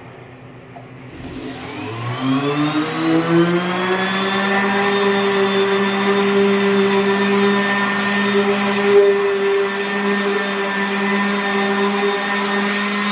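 Electric random orbital sander switching on about a second in, its motor whine rising in pitch as it spins up and then running steadily at full speed.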